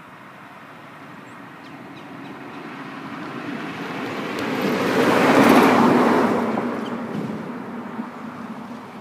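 A vehicle passing close by. Its noise swells steadily, peaks about five and a half seconds in, then fades away.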